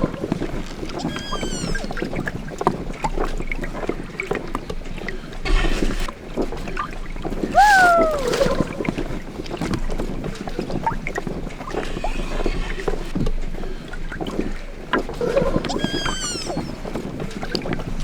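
Water sloshing and lapping with many small knocks and rustles, like a small boat on water. A short cry falling in pitch sounds about eight seconds in, and brief high whistling calls come near the start and again near the end.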